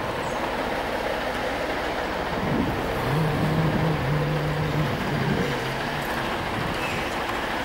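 Steady city street noise, with a low hum that holds and shifts slightly in pitch for about three seconds in the middle.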